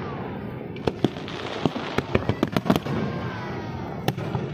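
Fireworks display: aerial shells bursting in an irregular string of about ten sharp bangs over a continuous din of overlapping bursts.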